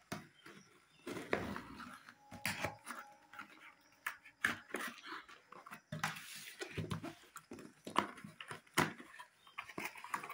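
Cardboard shipping box being opened by hand: packing tape picked at, torn and cut with a blade, and the cardboard flaps scraping and rustling, in irregular rasps and sharp clicks.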